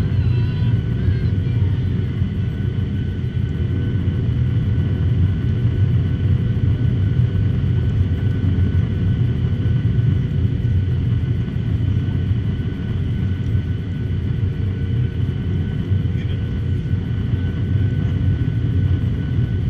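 Boeing 737-800 jet airliner coming in to land: a loud, steady deep rumble of engines and airflow, with several faint steady whining tones above it that hold their pitch throughout.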